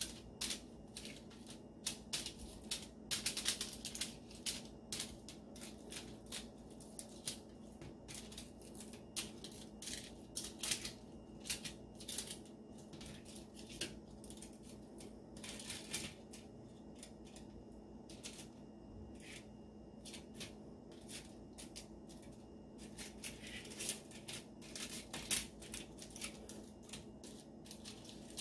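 Baked saltine crackers being flipped by hand on a foil-lined baking sheet: irregular crisp clicks and crinkles of crackers tapping each other and the aluminium foil, over a faint steady hum.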